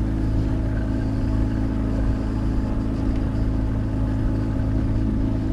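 Outboard motor on a small sailboat's stern running steadily, pushing the boat along: a constant low engine hum.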